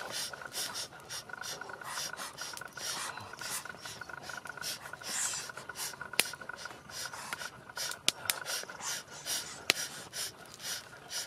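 Repeated rasping, scraping strokes, about two or three a second, with a few sharp clicks in the second half.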